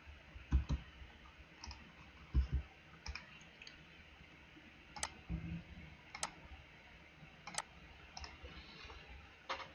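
Computer mouse clicking while points are picked to draw a curve in CAD software: a few faint clicks early on, then four sharper single clicks spaced about a second apart in the second half, with a few faint low thumps between.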